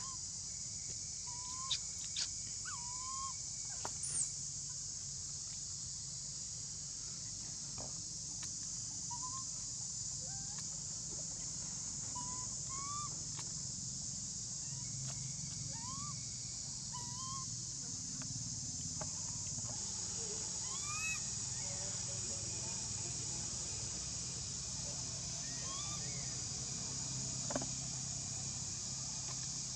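Outdoor forest ambience: a steady high-pitched hiss with short rising chirps every second or two, most likely birds calling, and a few light clicks in the first few seconds.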